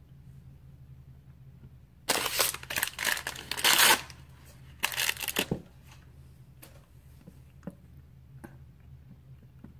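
Foil blind-bag wrapper crinkling loudly as it is handled, in two spells: one about two seconds long, then a shorter one a second later. A few faint taps follow over a low steady hum.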